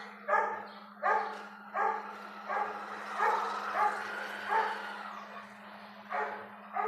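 A dog barking over and over, about nine barks spaced under a second apart, with a brief pause about five seconds in.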